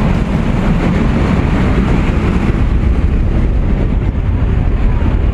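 Steady, loud rush of wind and a light aircraft's engine inside the cabin as the jump door stands open, the noise deepest at the low end.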